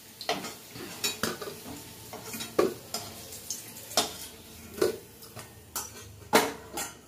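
Metal utensil scraping and clinking against a kadai as fried potatoes are lifted out of the hot oil: irregular sharp clinks about twice a second, the loudest about six and a half seconds in, over light sizzling of oil.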